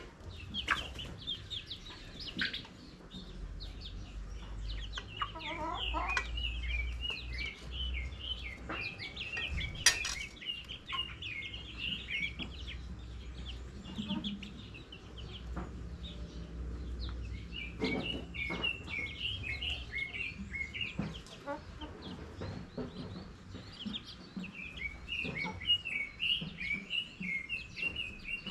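Chickens clucking, with many short high chirps repeating throughout. There is a sharp click about ten seconds in.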